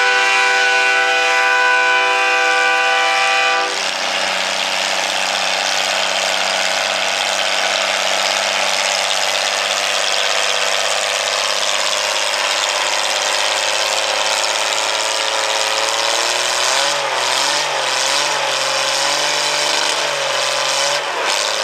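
Farmall 460 tractor engine running hard under load while pulling a sled, the pitch wavering in the last few seconds and then dropping near the end as the engine comes down. A loud horn chord sounds over it for the first few seconds.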